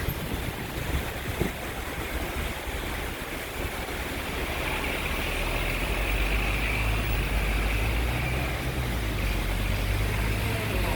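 Wind buffeting the microphone in gusts, with a steady wash of rain. From about halfway a steady low hum of passing road traffic joins in.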